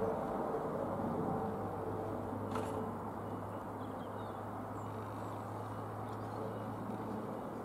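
Eurocopter EC155 helicopter flying away, a steady drone whose faint higher tone fades out about three seconds in as the sound slowly drops off. A few faint bird chirps come through in the middle.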